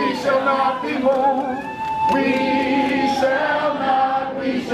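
A group of people singing together, several voices holding long drawn-out notes.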